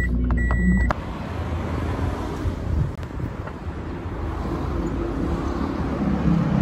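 A car's warning chime beeps once, a steady high tone that stops about a second in. Then comes steady outdoor road noise from passing traffic.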